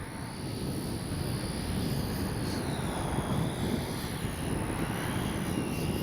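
Electric ducted fan of a 64 mm RC F-86 Sabre jet in flight: a rushing air noise with a high fan whine that drops in pitch around the middle. The noise grows louder over the first second.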